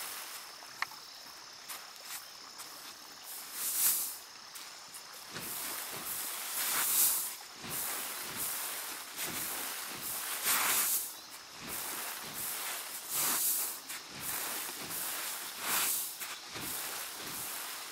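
Large round woven winnowing fan swung over threshed rice grain, making airy whooshes every few seconds as it blows the chaff off the grain.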